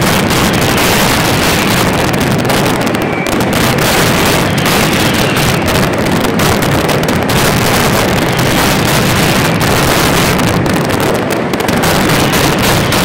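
Night mascletà fireworks: a dense, continuous barrage of aerial shells and firecrackers whose bangs and crackling blur into one loud, steady din.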